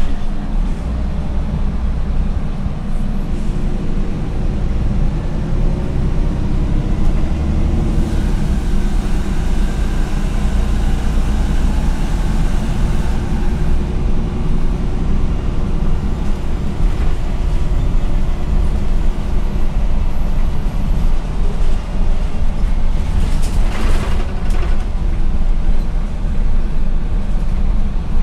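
Interior ride noise of a MAN NL243 CNG city bus under way: a steady low rumble of the gas engine, drivetrain and tyres. A faint whine comes in a few seconds in and fades about halfway, and there is a brief rattle near the end.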